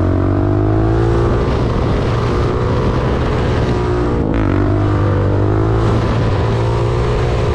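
Yamaha Banshee 350's twin-cylinder two-stroke engine under throttle: it climbs in pitch over the first second, eases off briefly about four seconds in, then pulls up again and holds high revs through a sit-down wheelie.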